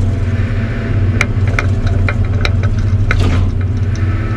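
Diesel engine of a log loader running steadily, with scattered sharp knocks and clicks from the machine as it works.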